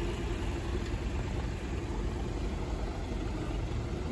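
Engines of an ambulance van and a large fire truck idling as they creep forward at walking pace in a slow convoy: a steady low rumble.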